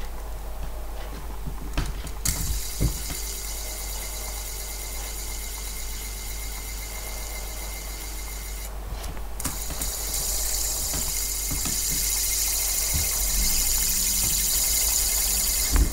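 Plastic light-up fidget spinner whirring with a steady high-pitched hiss as it spins between the fingers, after a few handling clicks. It is flicked into motion about two seconds in, stops for a moment around nine seconds, then is spun again and whirs a little louder.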